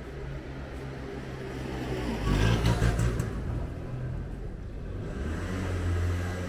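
Street traffic: a motor vehicle passing close by, loudest about two and a half seconds in, over a steady low engine hum.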